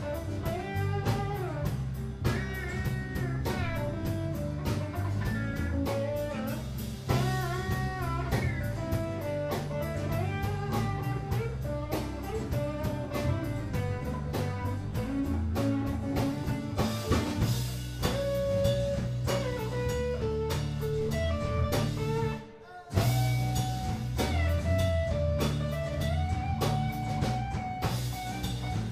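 Live band playing with bass guitar, electric and acoustic guitars and a steady drum beat. About three-quarters of the way through the band stops for a moment, then comes back in.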